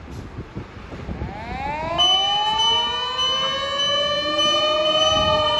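Fire engine motor sirens winding up over traffic noise: several rising wails start about a second in and overlap as they climb and level off, with a steady high tone joining at about two seconds.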